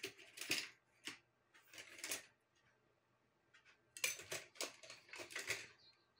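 Small objects rustling and clattering as they are handled on a desk while a wooden pointer stick is fetched, in several short bursts with quiet gaps between.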